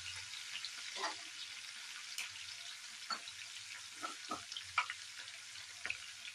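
Sliced onions, green chillies and curry leaves sizzling in hot oil in a nonstick frying pan: a steady hiss with scattered pops and crackles.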